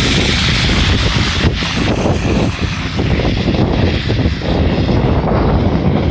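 Storm wind buffeting the microphone with an irregular low rumble, over a hiss that fades about halfway through.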